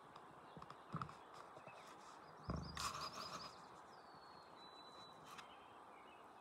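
Quiet outdoor background with faint high bird chirps and a thin whistled bird note, interrupted by two low thumps, about a second in and around two and a half seconds in.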